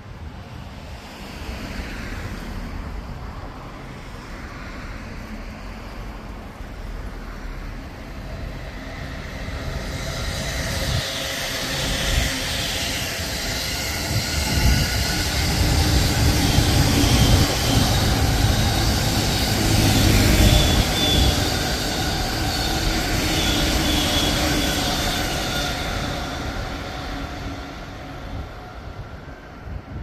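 JR Tokaido Line electric commuter train passing on the track. Its rumble and wheel noise build over several seconds, stay loudest through the middle with steady high-pitched tones above, then fade away near the end.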